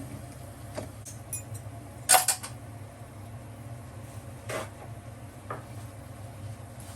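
Cooking utensils knocking and clinking against metal camp cookware: a quick cluster of knocks about two seconds in, the loudest, then single clinks later, over a steady low hum.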